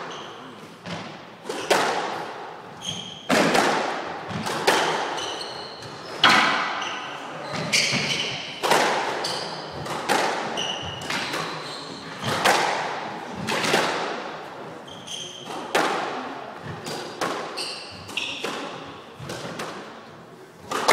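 A squash rally: the ball cracks off rackets and the walls about once every second or so, each hit echoing in the court, with short high squeaks of shoes on the wooden floor between the shots.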